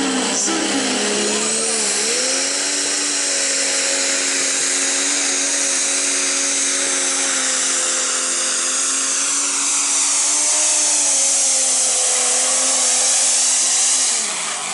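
Case IH 7250 pulling tractor's diesel engine running flat out, pulling the weight sled. Its loud, steady note dips briefly about two seconds in and then holds, with a high whine rising near the start. The note drops away right at the end as the pull finishes.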